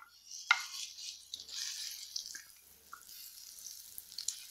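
Ground green chilli paste dropping off a wooden spatula into hot sesame oil in a steel kadai and sizzling softly. A sharp tap about half a second in, and a few lighter taps and scrapes of the spatula against the steel bowl and pan.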